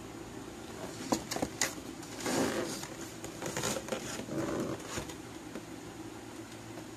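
Cardboard shoebox being handled and turned in the hands: a few light clicks about a second in, then several short rubbing scrapes, over a steady low background hum.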